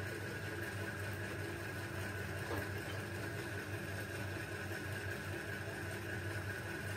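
Steady low mechanical hum of background noise, with a single faint click about two and a half seconds in.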